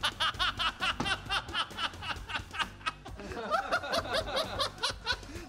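A person laughing in quick, rhythmic 'ha-ha' pulses, about five a second, over background music.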